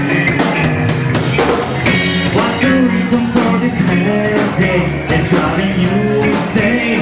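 A rock band playing live: guitar over a steady drum beat with regular drum and cymbal hits.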